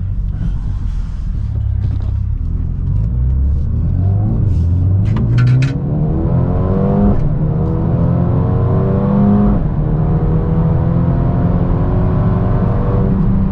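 Mercedes-AMG A35 saloon's turbocharged four-cylinder, heard from inside the cabin, accelerating through the gears. The engine note climbs, drops at an upshift about seven seconds in, climbs again and drops at a second upshift near ten seconds, then holds steady at cruising speed. The engine has a stage 1 remap and its rear silencer has been removed.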